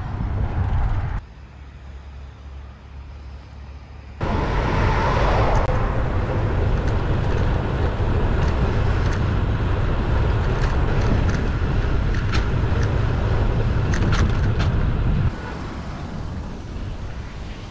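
Rushing wind and road-traffic noise picked up while riding a bicycle along a road, with a heavy low rumble. It drops abruptly quieter for about three seconds near the start and again near the end. Scattered light clicks run through the middle stretch.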